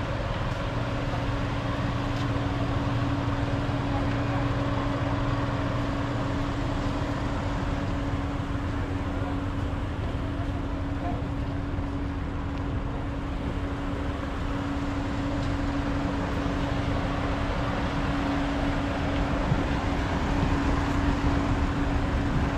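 Steady engine drone with a constant low hum, heard on the car deck of a docked catamaran ferry whose machinery is running at berth.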